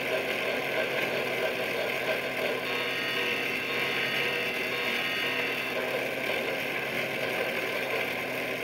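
Small motor and gears of the toy train on a Lionel 100th Anniversary alarm train clock, running with a steady mechanical sound.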